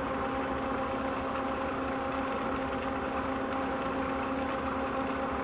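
1975 LeBlond model 4025NK hollow spindle engine lathe, driven by a 30-horsepower motor, running under power: a steady mechanical hum with a whine held at one pitch.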